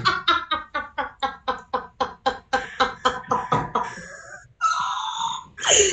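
A woman laughing hard in a rapid, even run of bursts, about five a second, that gradually fade, then a long breathy gasp near the end.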